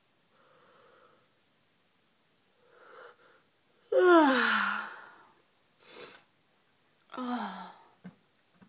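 A woman yawning: a soft breath in, then a loud voiced yawn about four seconds in that falls steeply in pitch. A breath out and a second, shorter voiced yawn falling in pitch follow near the end, with a couple of small mouth clicks.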